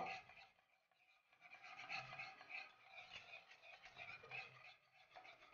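Faint scraping and rubbing of a wire whisk stirring a thick butter-and-flour roux in a saucepan, in irregular strokes starting about a second and a half in.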